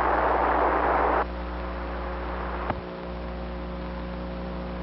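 Two-way radio hiss, an open receiver between transmissions, that cuts off sharply about a second in. It leaves a steady electrical hum, with a single click a little before the middle.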